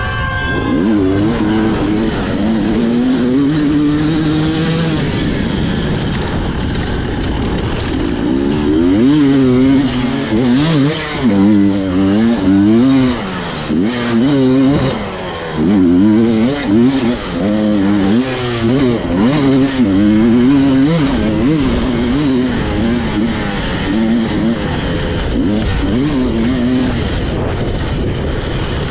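Two-stroke enduro motorcycle engine revving up and down in quick bursts as it is ridden over a race track, the pitch swinging about once a second, with short throttle-offs and scattered knocks in the middle stretch.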